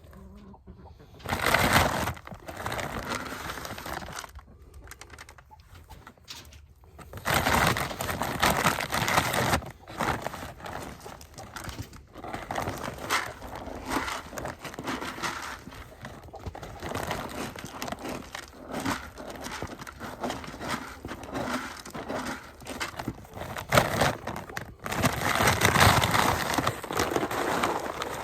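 Chickens giving soft calls amid repeated bursts of rustling and pouring noise as their feeder is filled.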